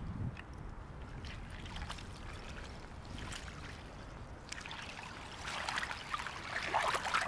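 Icy water sloshing and splashing in a hole cut in the ice as a person shifts and moves in it, with small irregular splashes that grow busier and louder near the end.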